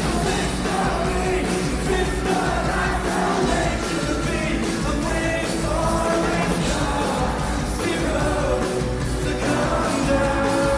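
Live rock song performance: a male lead singer singing over a full band, recorded from the audience.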